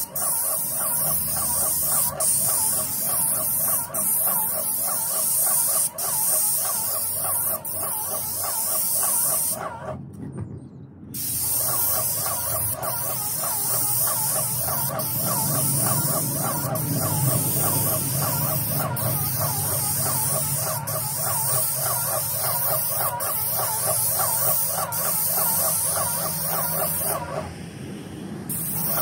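Paint spray gun on a long hose spraying coating onto roof tiles: a loud steady hiss with a fast, even pulsing underneath. It cuts out for about a second some ten seconds in, and the hiss drops away again briefly near the end.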